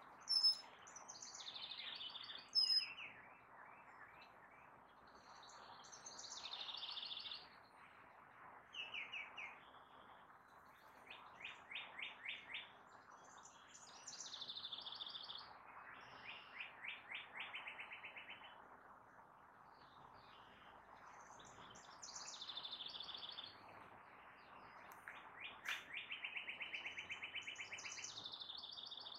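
Songbirds singing: varied high phrases alternating with three long trills of rapid repeated notes, with two sharp loud chirps near the start, over a steady faint background hiss.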